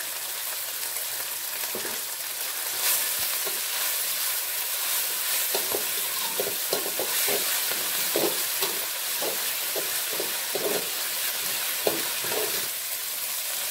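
Green-chilli sambal paste frying in hot oil in a metal wok, sizzling steadily, while a metal spatula stirs and scrapes it around the pan in repeated strokes from about five seconds in.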